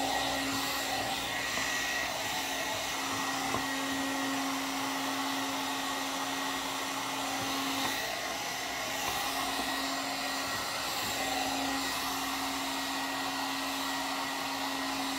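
One-step hot-air brush hair dryer running steadily: an even rush of air over a steady motor hum, while it is worked through the hair.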